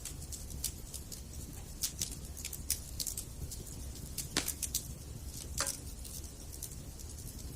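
Campfire burning, wood crackling with irregular sharp snaps and pops over a low steady rumble, a couple of louder pops about halfway through.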